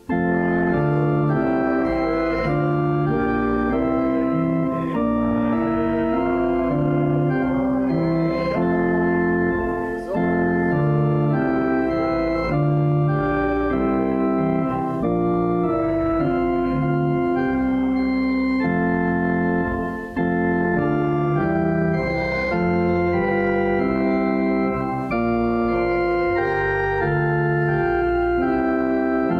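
Church organ playing a hymn in held, sustained chords that change every second or so, with short breaks between phrases.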